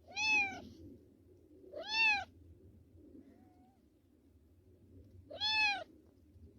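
A domestic cat meowing three times, a few seconds apart. Each meow is about half a second long and rises then falls in pitch.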